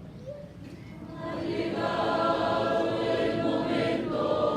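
A church choir begins singing about a second in, many voices together on held notes, after a faint murmur of the congregation.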